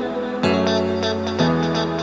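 Instrumental background music, with the chord changing about once a second.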